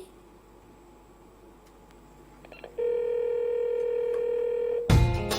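A short quiet gap, then a steady telephone-style dial tone held for about two seconds, used as a sound effect in a pop track's intro; drum hits and music come in near the end.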